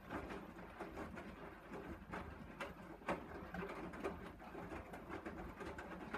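Hoover Dynamic washing machine drum starting to turn partway through a wash, with water sloshing and wet laundry tumbling and knocking.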